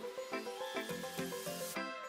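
Background instrumental music with short plucked or struck notes, with a brief hiss near the end.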